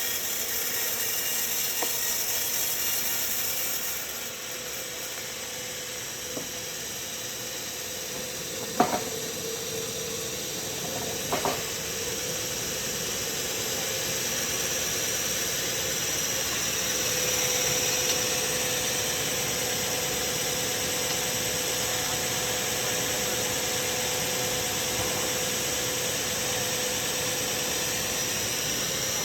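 Sawmill machinery running steadily, a continuous mechanical noise with a faint steady whine. Two sharp knocks come about nine seconds in and again a couple of seconds later.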